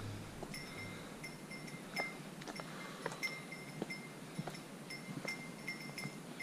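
A small bell jingling as the wearer walks: short, clear rings at one pitch, one to three a second at uneven intervals, with soft footfalls on the trail.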